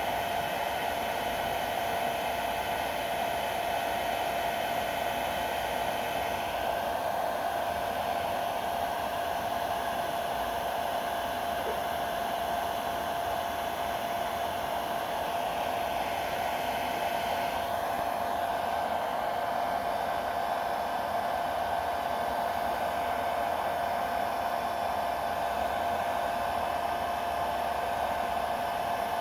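Electric hot-air blower running steadily, a constant rush of air with a steady whine, blowing on a rubberized adhesive grip to warm and soften it so it can be pressed into place.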